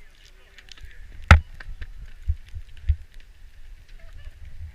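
Wind rumbling on the microphone and skis hissing over snow during a downhill ski run. A sharp knock comes about a second in, then a couple of softer thumps.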